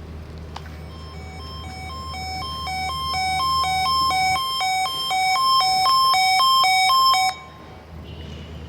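Electronic two-tone alert signal alternating between a low and a high tone about twice a second, growing steadily louder for several seconds and then cutting off abruptly. A steady low hum runs underneath.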